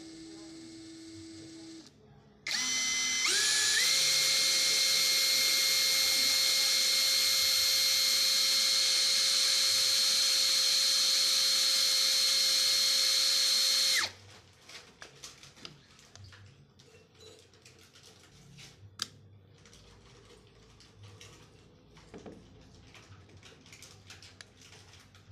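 Dongcheng brushless cordless drill motor spinning up in quick steps to full speed, running with a steady high-pitched whine for about ten seconds, then stopping abruptly. Light clicks and handling noise follow.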